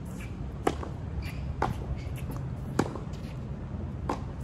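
Tennis ball struck by rackets in a rally: a serve hit well under a second in, then three more sharp racket-on-ball hits roughly a second apart. The near player's shots are louder than the far player's.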